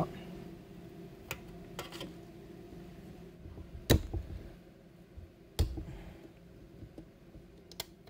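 Hand cutters snipping pieces off a laptop's plastic-and-metal case part. There are sharp snaps, the two loudest about four and five and a half seconds in, with lighter clicks between them.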